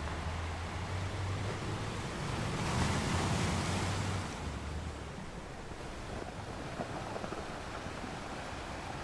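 Ocean waves washing onto a sand beach: a wave swells and breaks about three seconds in, then eases back to a steady wash of surf.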